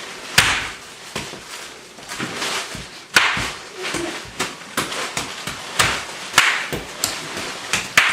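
A series of irregular sharp snaps and knocks, with several short bursts of crackling about a second or two apart.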